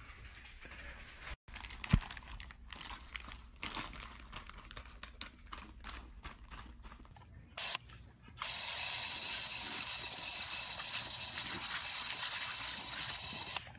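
A plastic bag crackling and crinkling as a dog moves with its head stuck inside it, with a sharp knock about two seconds in. About eight seconds in, this gives way to the steady hiss of a garden hose spraying water at a dog.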